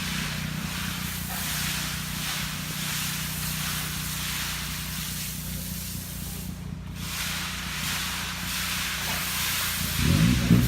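An engine running steadily, with a continuous hiss over it. Near the end the engine gets louder and rougher.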